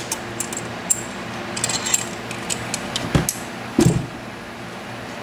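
Small metal clicks and clinks of lock picks and a just-picked wafer cam lock being handled, with two heavier knocks about three and four seconds in.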